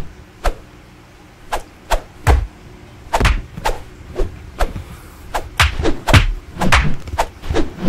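A quick, irregular string of sharp whacks and thumps, more than a dozen in about eight seconds, as a hand spars with a kitten.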